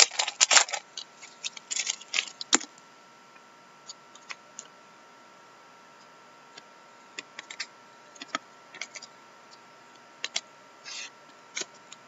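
Foil trading-card pack wrapper crinkling and tearing open for the first couple of seconds, then scattered light clicks and taps as the cards are handled.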